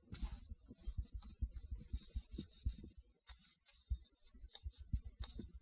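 Cotton patch and vinyl-gloved fingers rubbing over the stripped frame of a Zastava M70 pistol while it is wiped clean: short, irregular scuffing strokes with many soft bumps from handling.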